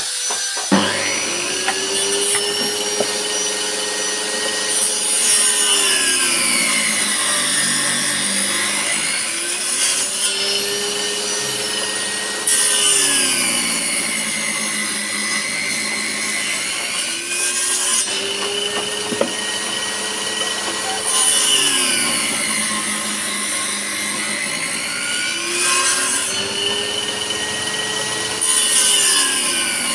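Table saw with its circular blade running through a wooden tabletop, ripping tenon cheeks into the end of a board. The motor's pitch sags each time the blade bites into the wood and recovers between passes, about four times.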